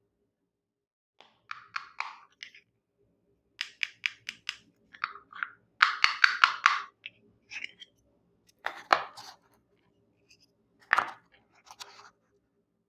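Small plastic toy kitchen pieces being handled: bursts of quick clicks and taps, with a couple of sharper knocks in the second half.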